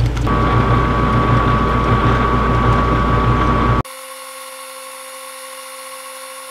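Metal lathe running at a steady speed, its motor giving a steady hum with a whine over it. A little past halfway it cuts off abruptly to a much fainter sound with a few steady high tones.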